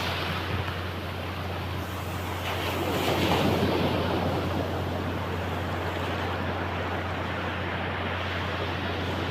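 Sea surf washing in, with a wave swelling louder about three seconds in, over a steady low rumble.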